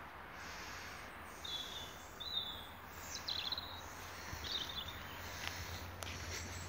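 Small birds chirping, a handful of short high calls, over a steady outdoor background hiss with a low hum underneath.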